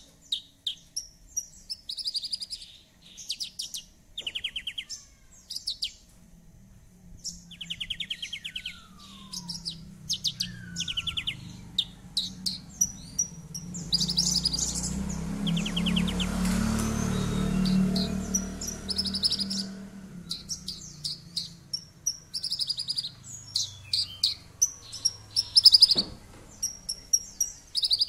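Caged branjangan (Horsfield's bush lark) singing a rapid, chattering song of short high trills and chirps, phrase after phrase. Midway a low rumble swells for several seconds and fades beneath the song, and one sharp click comes near the end.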